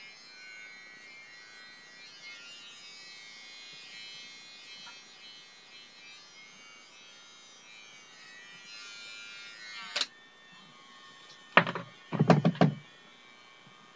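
BaByliss for Men i-stubble electric beard trimmer buzzing quietly as it cuts stubble, then a sharp click about ten seconds in as the buzz stops. A few loud knocks follow as the trimmer is handled.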